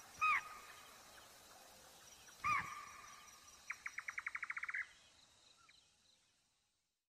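A night bird calling: short calls that rise and fall in pitch, then a fast rattle of about a dozen notes at about ten a second, around four seconds in. Everything fades out near the end.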